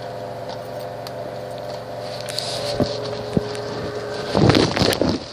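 A steady mechanical hum with two faint clicks, then a louder burst of rustling and knocking about four seconds in.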